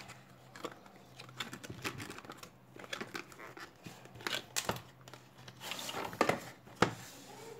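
Cardboard packaging being handled: a white paper sleeve slid off a rigid black cardboard box, with scraping, rustling and many light taps, and a few sharper knocks near the end.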